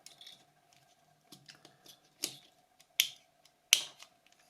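Sharp clicks and taps of small plastic and metal phone parts being handled and pried out during disassembly of a Nokia 5210: a few soft ticks, then three louder clicks about three quarters of a second apart, over a faint steady tone.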